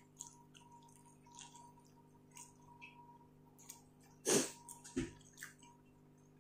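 Close-up eating sounds: soft wet lip smacks and chewing clicks as mouthfuls of rice are eaten, with a louder wet mouth sound a little after four seconds in and another about a second later.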